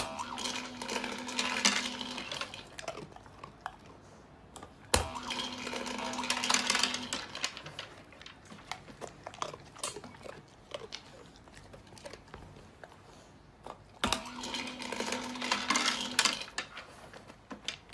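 Automatic pet food dispenser set off by a dog's paw on its press button, three times. Each time a click is followed by about two seconds of motor hum while dry food rattles out into the tray.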